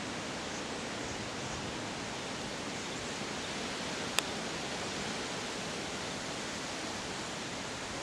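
High wind blowing steadily, an even rushing noise with no let-up, broken once by a single sharp click about halfway through.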